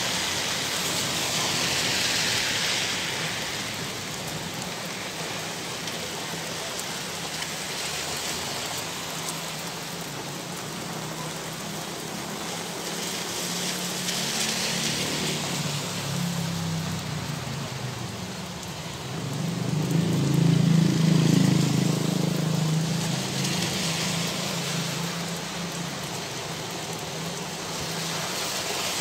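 Heavy rain falling steadily in a thunderstorm, its hiss swelling and easing several times. A low rumble builds in the second half and is loudest about two-thirds of the way through.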